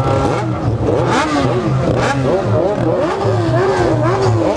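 Several motorcycle engines revving in short rising and falling blips, overlapping one another, over the low steady running of a nearby engine.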